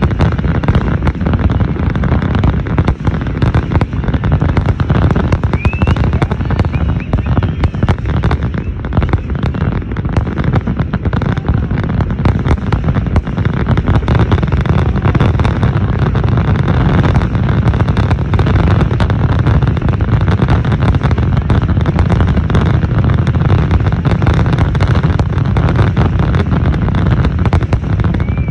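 Aerial fireworks display: a dense, continuous barrage of shell bursts, rapid booms overlapping one another without a pause.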